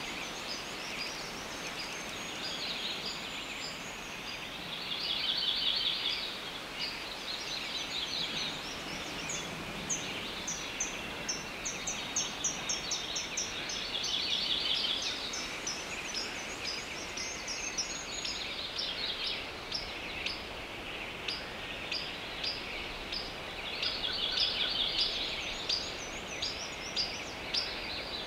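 Outdoor ambience of small birds: many short, high chirps over a steady high hiss, with a few trilled songs rising out of it now and then.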